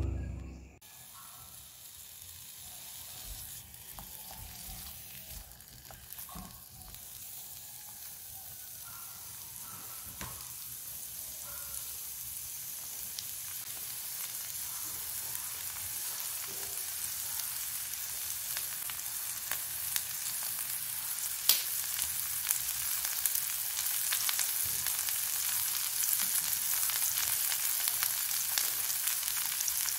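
Kale leaves and cucumber slices sizzling in a hot frying pan. The sizzle grows steadily louder, with scattered sharp crackles. It starts just as background music fades out at the very beginning.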